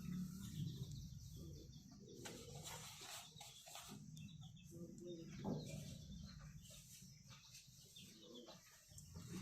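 Faint chicken clucking and bird calls, with scattered soft clicks and taps.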